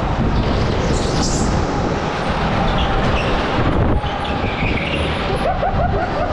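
Indoor rental go-kart driving at speed, heard from the onboard camera: a steady rumble of tyres and chassis with wind buffeting the microphone, and a faint wavering squeal near the end.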